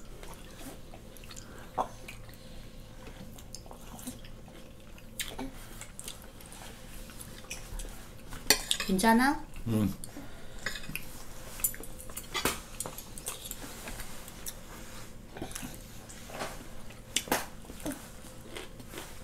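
Metal spoons and forks clinking and scraping against ceramic plates during a meal, in scattered short clicks.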